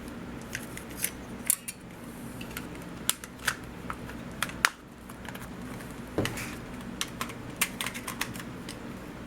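Xbox 360 controller being tested after the RB bumper repair: a string of irregular sharp plastic clicks as its buttons and bumper are pressed, some louder than others. A faint steady hum lies underneath.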